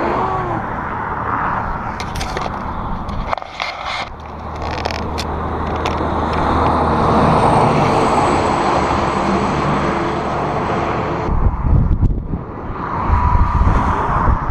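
Road traffic passing: car engines and tyre noise, with an engine hum building through the middle. In the last few seconds gusts of wind buffet the microphone with a heavy low rumble.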